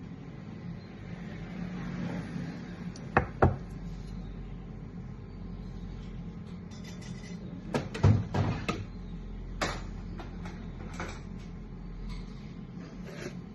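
Hard clicks and knocks from handling a paper embossing tool and its logo plate: two sharp clicks about three seconds in, a quick cluster of knocks around eight seconds, then a few lighter clicks.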